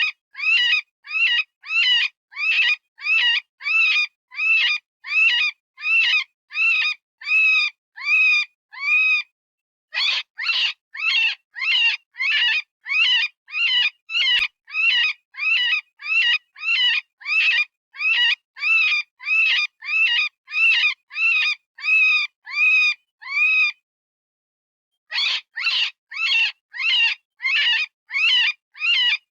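Synthesized rabbit distress call, the electronic predator-call sound of a rabbit screaming in pain or fear: a rapid series of short, high squeals, a little over two a second, that pauses briefly twice.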